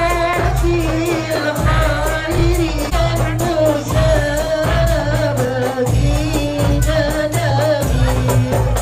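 Music with a sung melody over a steady beat and evenly repeating percussion.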